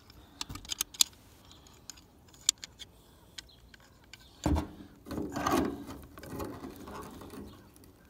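Metal hand tools (a wrench and channel-lock pliers) clicking and clinking against a swamp cooler's water supply line fitting while it is gripped and turned. There are sharp ticks in the first few seconds, then a thump about four and a half seconds in and a few seconds of scraping and rustling as the tools are repositioned.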